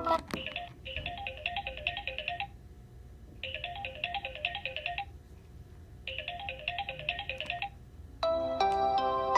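Samsung Galaxy S9 ringtone: a rapid trill of short notes in three bursts of about two seconds each, with a pause of about a second between them. Near the end a different ringtone begins, with sustained musical tones.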